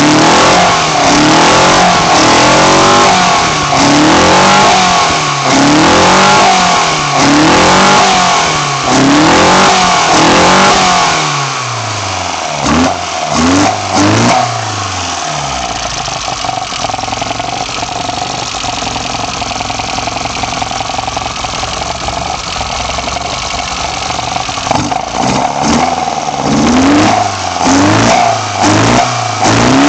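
BMW M10 inline four-cylinder engine breathing through sidedraft individual throttle bodies, blipped over and over so the revs rise and fall about every second and a half. It settles to a steady idle about halfway through, then the throttle blips start again near the end.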